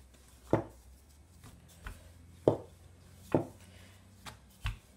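Wooden rolling pin rolling out dough on a countertop, knocking against the surface: a series of about six dull knocks, the loudest about half a second in and again about two and a half seconds in.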